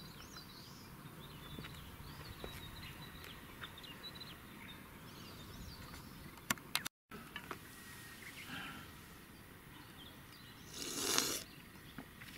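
Faint outdoor ambience with small birds chirping and calling high-pitched. The sound cuts out for a moment about seven seconds in, and near the end there is a short, loud rush of noise.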